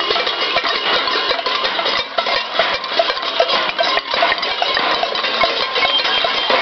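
Many pots and pans being banged at once in a cacerolazo protest: a dense, unbroken clatter of metal strikes with ringing metallic tones.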